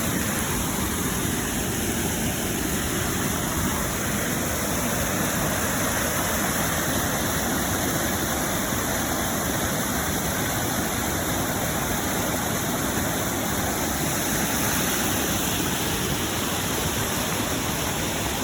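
Floodwater rushing in a steady, unbroken noise.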